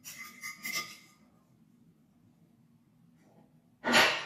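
Knife cutting through the crisp fried batter coating of a cauliflower floret on a plate: a few crackly crunches in the first second, then one louder crunch near the end.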